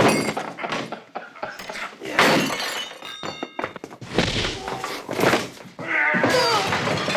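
Fist-fight sound effects: several hard punch and body impacts, with things breaking and smashing and a ringing clatter about halfway through, over film music.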